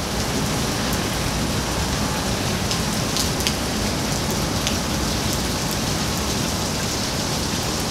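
Steady rain falling, an even hiss with scattered ticks of single drops.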